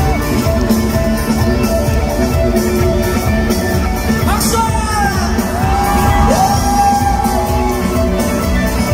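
Loud live concert music from the band, with a voice holding long notes that slide up and down over it, and shouting.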